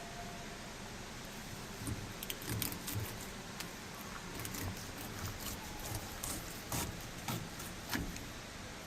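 Scattered light clicks and knocks from trout being handled and cut on a fish-cleaning board, about a dozen between about two and eight seconds in, over a steady hiss.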